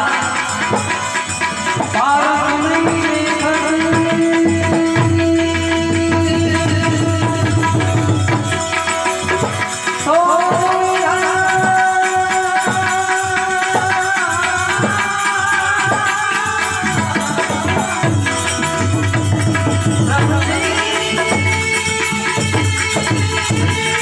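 Music from a Gujarati bhajan: a melody of held notes that slide up into pitch, over hand-drum beats and a rattling percussion.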